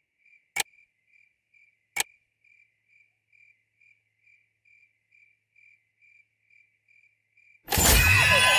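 Crickets chirping faintly and steadily, about two chirps a second, as a night-time background, with two sharp clicks about half a second and two seconds in. Near the end a sudden loud shimmering sound effect with sweeping tones bursts in as a bright light flashes.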